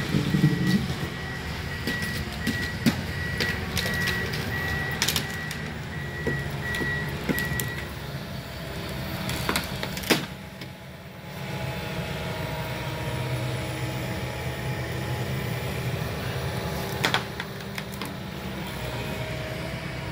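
Diesel engine of heavy demolition equipment running, with its reversing alarm beeping steadily through the first eight seconds or so and starting again at the end. Scattered sharp knocks and cracks of debris throughout, one loud crack about ten seconds in followed by a brief lull.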